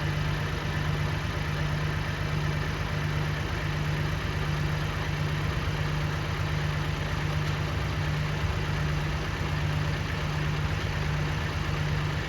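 A vehicle engine running steadily, with a strong low drone that throbs evenly.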